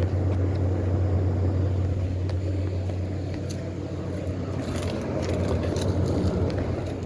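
Central air-conditioner condenser unit running just after switching on: a steady low compressor hum under the rush of the fan, easing a little toward the end.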